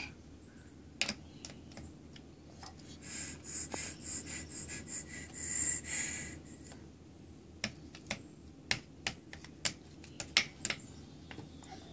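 Light clicks and taps of a plastic bubble-blower toy knocking against its dish and the wooden deck, scattered irregularly. About three seconds in comes a few seconds of breathy, high-pitched blowing into the toy.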